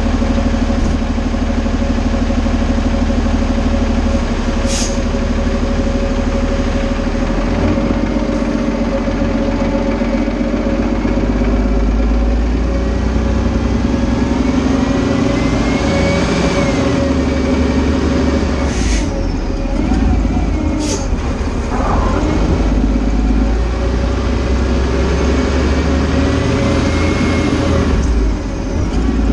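Fire engine's diesel engine running steadily as the truck pulls away and drives off, with three short hisses of air from its air brakes.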